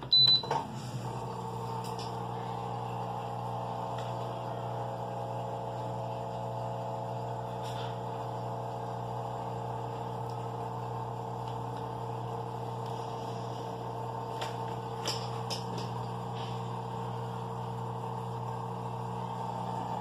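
Top-loading washing machine beeps once as its start button is pressed, then runs its fill stage: a steady hum of the inlet valve letting water into the machine, with a few faint clicks.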